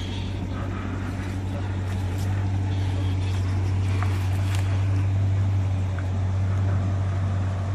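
Jeep Grand Cherokee SRT's V8 running steadily at low revs through its Borla axle-back exhaust while it backs a boat trailer down a launch ramp, with a constant low hum.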